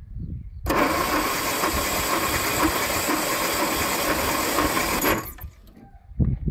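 A Land Rover 109's 2.25-litre four-cylinder petrol engine is turned over on its starter motor for about four seconds with a compression gauge on cylinder three. It starts abruptly a little under a second in and cuts off suddenly. The cylinder reads about 102 psi, the lowest so far.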